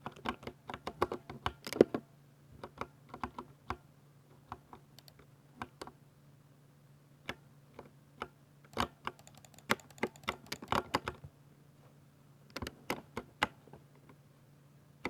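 Typing on a Ducky 60% mechanical keyboard with silver switches: quick flurries of key clicks broken by short pauses and a few lone keystrokes.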